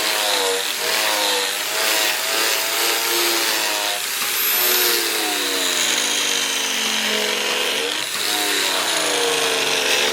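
Electric grinder working on steel, its motor pitch wavering, sagging for a few seconds about midway as it is pressed harder into the work, then climbing back.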